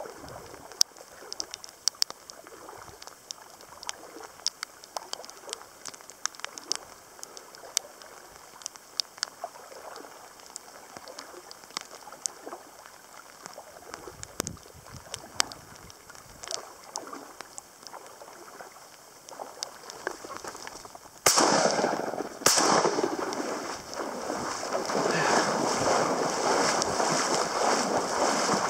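Heavy rain: single drops tap sharply and irregularly on the camera and rain gear over a faint hiss. About two-thirds of the way in, a sudden loud rush of wind-driven rain takes over.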